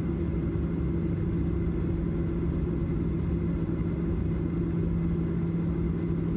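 Steady low engine rumble with a constant low hum.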